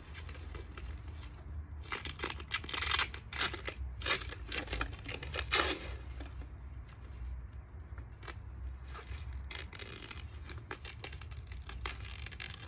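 Clear plastic mover's stretch wrap being peeled and pulled off its roll by hand, crinkling and crackling in irregular bursts that are loudest in the first half, over a low steady rumble.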